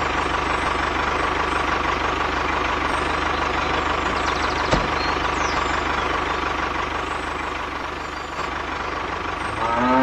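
A motor runs steadily with a thin whine, with a couple of faint clicks. Near the end a cow moos.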